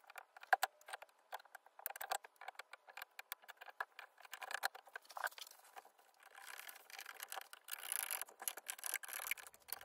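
Faint clicks, taps and light knocks of glued oak strips being handled and laid into a homemade wooden clamp. Near the end a screwdriver turns a clamp screw, a denser run of scratchy clicking.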